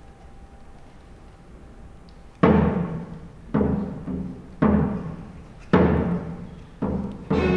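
Near quiet for about two and a half seconds, then a baroque ensemble starts a march: heavy accented beats, about one a second, each struck hard and ringing away.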